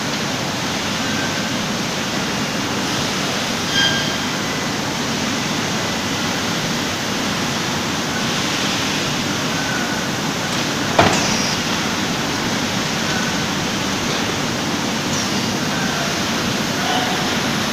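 Steady running noise of a bottled-water production line: chain conveyors carrying plastic bottles and a carton packing machine working. A sharp clack about eleven seconds in and a smaller one near four seconds.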